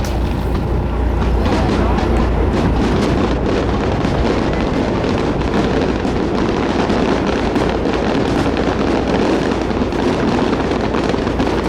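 Fireworks display: a dense, steady crackle of many small bursts going off together.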